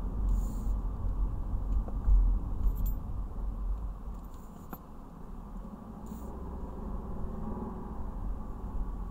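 Road and engine noise inside a moving BMW's cabin: a steady low rumble that eases a little after the first few seconds.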